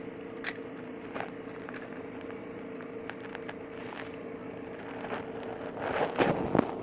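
Small plastic toy trains being handled: a few light clicks and a short plastic rustle near the end, over a faint steady hum.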